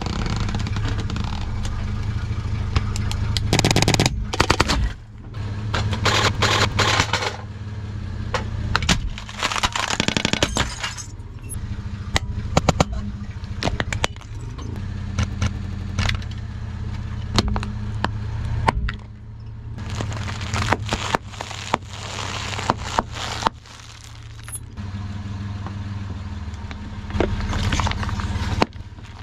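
Car tyre rolling slowly over objects such as an LED spotlight and crushing them, with repeated sharp cracks and breaking crunches of plastic and glass over the car's steady low engine running.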